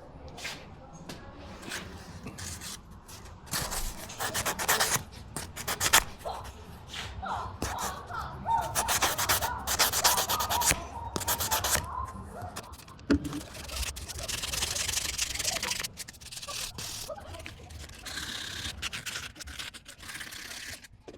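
Hand rubbing strokes on the metal studio lamp, as in scrubbing or hand sanding, in irregular runs of quick strokes with short pauses.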